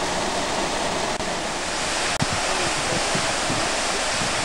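Steady, loud rushing noise with no distinct events, broken by two brief dropouts about one and two seconds in.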